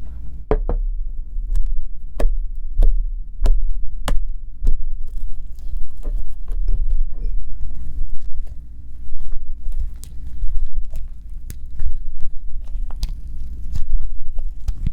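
Homemade slime being handled, with a run of sharp sticky clicks and pops at about one and a half a second at first, then quicker and fainter, over a low rumble of handling.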